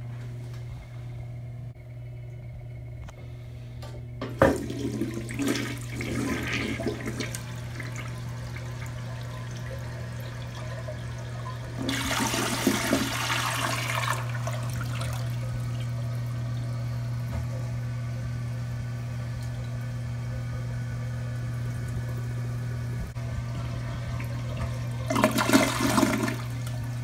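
Tank toilet flushing: a sharp click about four seconds in, then water rushing and swirling in the bowl, with louder surges about twelve seconds in and again near the end. A steady low hum runs underneath.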